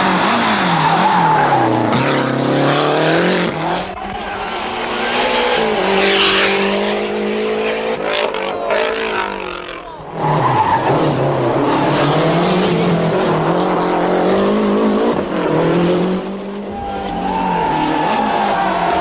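Group A Lancia Delta rally cars' turbocharged four-cylinder engines revving hard, the pitch climbing and dropping back again and again through gear changes, over several successive shots that cut about ten seconds in and again near the end.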